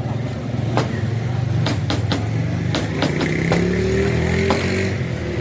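A motor vehicle engine running steadily, its pitch rising about three seconds in, with several sharp clicks or knocks over it.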